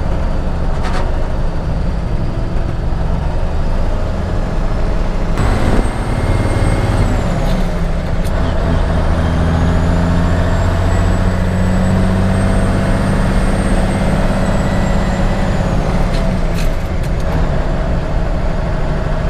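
Diesel engine of a 1987 International Paystar dump truck pulling the truck down the road, heard from inside the cab. The engine note dips about six seconds in, then climbs and holds, with a faint high whine rising and falling through the middle.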